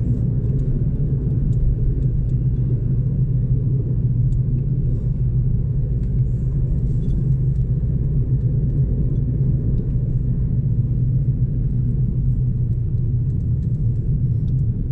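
Steady low rumble of engine and road noise inside the cabin of a moving car.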